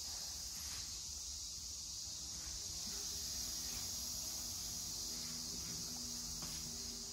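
Faint steady high-pitched insect chorus, with a low hum and a few faint steady low tones from a little after two seconds in until near the end.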